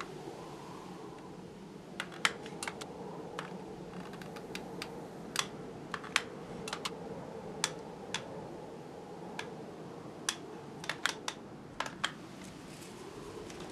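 Irregular sharp clicks and light taps as thin wooden craft sticks and a hot glue gun are handled while the sticks are glued into a small frame, over a steady low hum.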